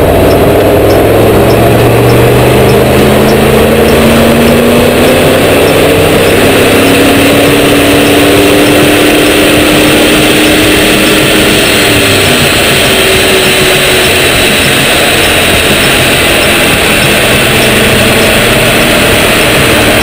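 Porsche Cayenne 958's 4.2 V8 TDI diesel under full load on a chassis dyno, its pitch climbing slowly for about twelve seconds. Then it drops off as the throttle is lifted and the rollers run down, over a steady loud rush.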